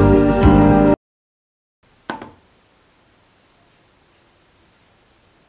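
Guitar background music that cuts off suddenly about a second in. About a second later, a single sharp knock as the wooden craft-stick shelf is set down on the table. Then faint scraping strokes of a paintbrush applying acrylic paint to the wood.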